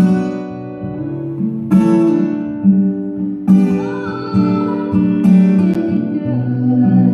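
Acoustic guitar playing an instrumental passage, a strong strummed chord about every two seconds, each left to ring out, with lighter strokes in between.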